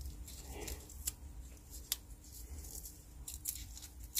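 Small clicks and scrapes of a tool and gloved fingers working the CMOS coin-cell battery out of its holder on a desktop motherboard, a few sharp ticks spread out over a low steady hum.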